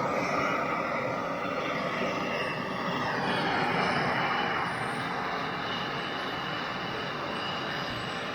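Soldering torch flame burning steadily with a continuous rushing hiss while a copper pipe joint is heated for sweat soldering.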